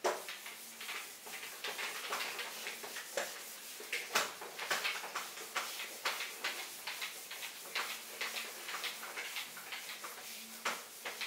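Whiteboard being wiped with a hand-held duster: a run of rapid back-and-forth rubbing strokes of the eraser across the board, a few each second, uneven in strength.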